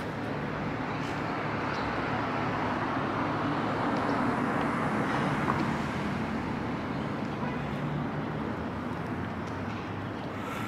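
Street traffic: a steady hum of road noise with a vehicle passing, swelling to its loudest about halfway through and then fading.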